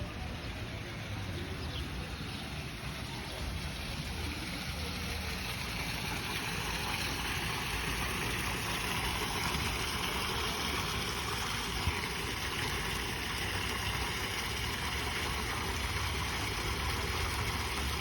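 Water from a garden fountain splashing steadily, over a steady low rumble.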